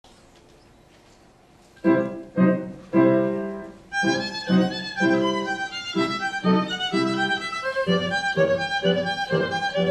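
Violin and upright piano playing together. After a short quiet start, the piano opens with three struck chords, then the violin comes in with a sustained melody about four seconds in over steady repeated piano chords.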